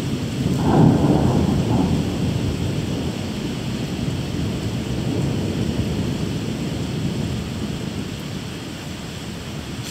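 Thunder rumbling, loudest about a second in and slowly dying away, over steady rain.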